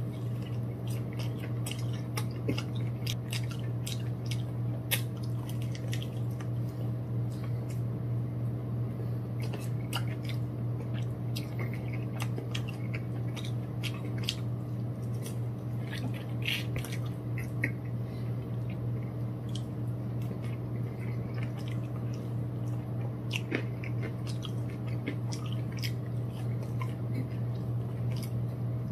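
A person biting into and chewing crispy fried chicken nuggets and wings, with many short crunches and wet mouth clicks at irregular intervals. A steady low hum runs underneath.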